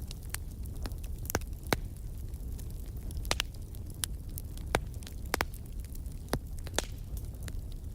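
Wood fire crackling in a fireplace: irregular sharp snaps and pops, a handful of them louder, over a steady low rumble of the flames.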